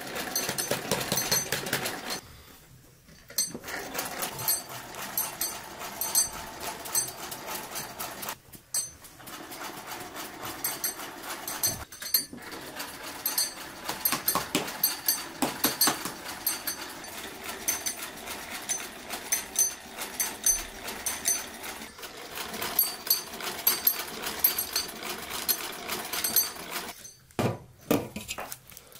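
Small vintage sewing machine stitching, its needle mechanism clattering in quick even runs that stop briefly a few times.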